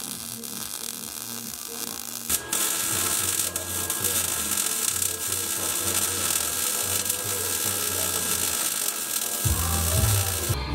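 Electric welding arc crackling and hissing steadily for about eight seconds, starting suddenly a couple of seconds in and cutting off sharply near the end, as a bracket is welded to the steel truck frame.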